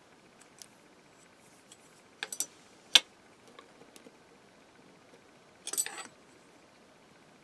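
Small metal craft embellishments, flat washers and a metal filigree piece, clicking and clinking as they are handled and set down on a board. A few light taps, a sharp click about three seconds in, and a short jingling rattle near the end.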